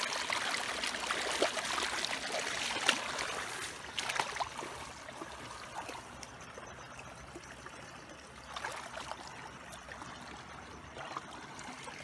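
Shallow water trickling and flowing, with scattered sharp clicks and small splashes; louder in the first few seconds, then quieter.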